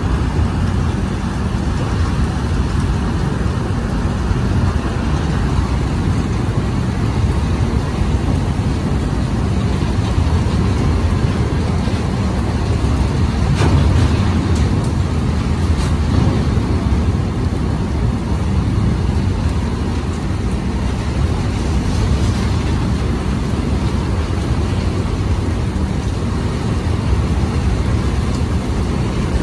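A goods train of covered steel box wagons rolling past close by: a loud, steady rumble of wagon wheels running on the rails.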